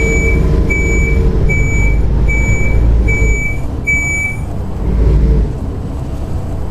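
Volvo B7TL bus (ALX400 body): about seven short high beeps from its warning beeper, evenly spaced a little under a second apart and stopping after about four seconds, over the steady rumble of its diesel engine, which swells briefly near the end.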